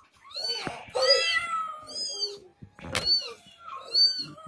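Domestic cats meowing: a string of about five short meows, each rising then falling in pitch, with one sharp click about three seconds in.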